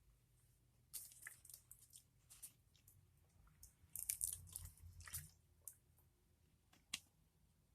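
Faint crunching and wet mouth sounds of someone chewing a hard, dry bean snack, in irregular bursts that are loudest about four seconds in, with a sharp click near the end.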